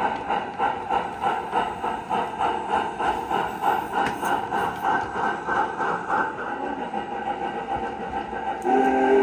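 O gauge model train running with a fast, even rhythmic beat from its sound system or wheels. About 8.7 s in, a steady multi-tone train whistle starts and holds.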